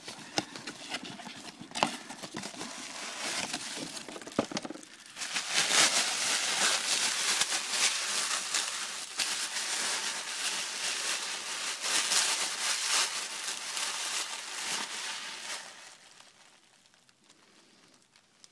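Packaging for a boxed bottle of perfume being handled and opened: a few light taps and clicks, then about ten seconds of dense crinkling and rustling that dies away near the end.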